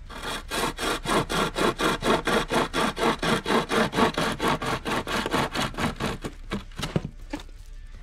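Hand-pulled pocket chainsaw, a toothed link chain drawn back and forth by two handles, sawing through a thin mostly-poplar branch in quick rhythmic rasping strokes, about five a second. The strokes thin out near the end as the cut goes through.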